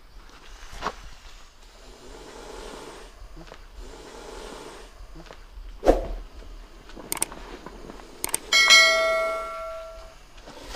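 A chime-like bell dings about eight and a half seconds in and rings out for about a second and a half, with a few sharp clicks just before it: the subscribe-button sound effect. A sharp thump comes about six seconds in, over soft noise.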